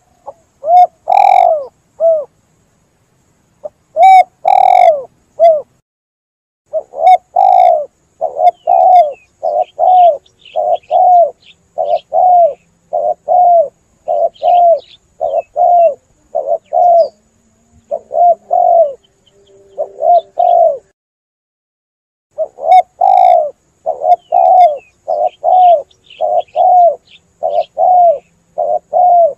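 Spotted dove (tekukur) cooing loudly in runs of short, arched coo notes, about two a second, broken by a few pauses of one to two seconds.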